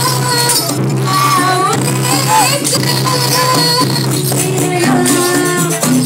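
Live jaranan gamelan music in the fast sampak style: a bending melody line over steady low gong tones, with regular drum strokes and jingling percussion.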